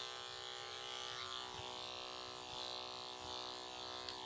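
Electric pet grooming clippers running steadily.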